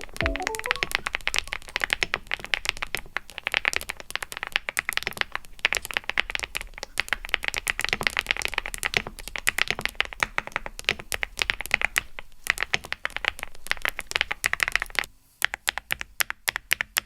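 Fast typing on a mechanical keyboard fitted with keycaps: a dense, rapid run of keystroke clacks. About 15 seconds in, the background hiss drops away and the keystrokes go on sparser and cleaner.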